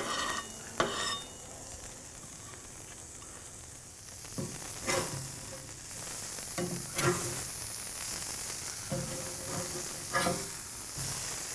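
Beef burger patties and plantains sizzling on an open-flame fire-pit grill, a steady hiss, with a metal spatula scraping and clinking against the grill plate and grate several times as the patties are flipped.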